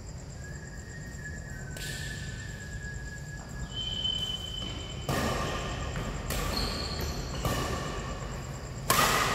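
Badminton rally in an indoor hall: sharp smacks of rackets hitting the shuttlecock about once a second in the second half, the loudest near the end, with short high squeaks of shoes on the court floor before the serve.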